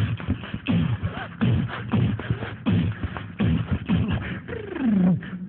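A man beatboxing into a microphone: punchy, drum-like vocal hits about two a second, each dropping in pitch, with a longer falling swoop near the end.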